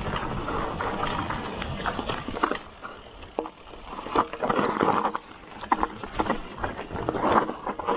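Ragley Big Wig 29er mountain bike ridden fast down a dirt trail: a steady rumble from the tyres for the first two and a half seconds or so, then the bike rattling and clacking over rough ground, with several sharp knocks.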